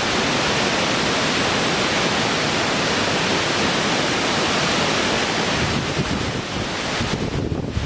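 Rushing water: a steady, dense hiss of white water. About seven seconds in it turns uneven and surging.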